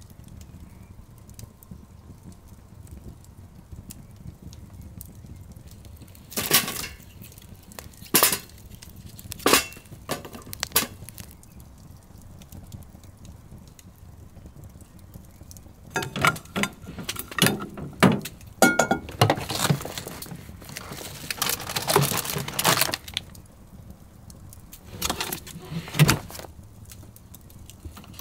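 Wood fire burning in a portable metal fire pit: scattered sharp snaps and clinks from the burning logs over a faint low rumble, with a dense run of them about halfway through.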